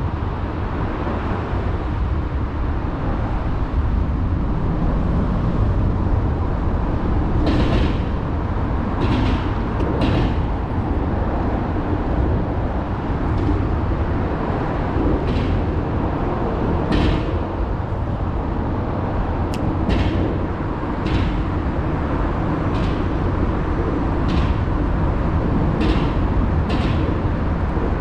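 Steady low rumble of a fishing boat running between spots, with a dozen or more short sharp clicks and knocks scattered through the second half.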